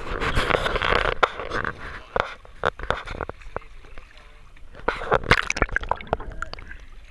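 Water sloshing and splashing at the side of a fishing boat, with scattered knocks and clicks. The splashing is loudest in the first second and again about five seconds in.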